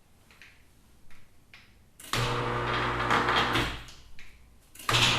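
Electric motors of an Auxx-Lift ceiling storage lift starting up and running with a steady hum, stopping briefly and starting again near the end. The lift runs without the controller's clicking, now that its limit switches have been reset.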